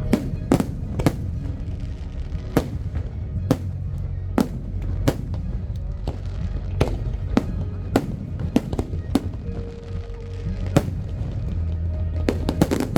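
Fireworks bursting in sharp, irregular bangs, roughly one or two a second, with a dense run of rapid bursts near the end. Music with a steady low bass plays underneath.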